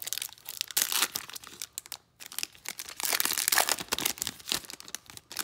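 Foil wrapper of a trading card pack crinkling and tearing as it is pulled open by hand, in irregular crackling bursts with a brief lull about two seconds in.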